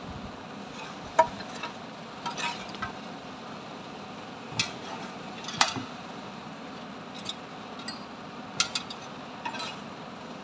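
Light metallic clinks and taps, about a dozen at irregular intervals, over a steady background noise.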